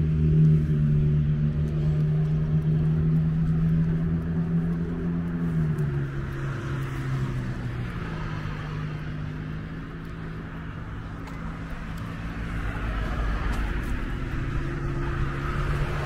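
A motor vehicle's engine running with a steady hum, which drops in pitch and fades about six seconds in. Another vehicle's engine and road noise grow louder near the end.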